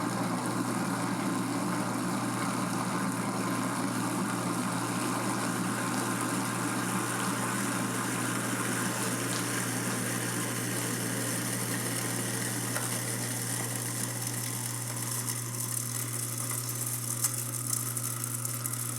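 Garbage disposal motor running with a steady hum while it churns a foaming disposer-cleaning packet with a trickle of water, mid-way through the cleaning cycle.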